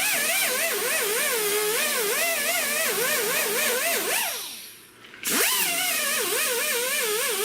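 Handheld power tool working on the car's body panel, its whine wobbling up and down in pitch as it is pressed against the metal, over a strong hiss. It winds down about four and a half seconds in and starts again about half a second later.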